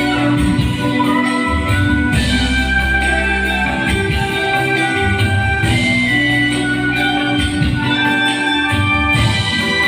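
Live band playing amplified music, with held keyboard chords over electric guitar, bass and drums.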